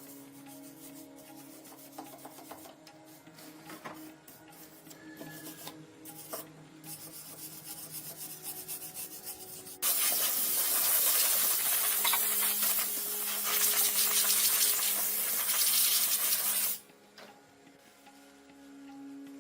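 Background music with light tapping and scraping. About ten seconds in, a loud abrasive rubbing noise starts suddenly, runs for about seven seconds, then stops abruptly.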